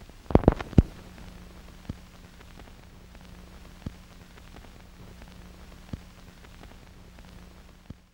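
Steady low hum and hiss of old recording noise with clicks: three loud clicks close together about half a second in, then a single fainter click roughly every two seconds.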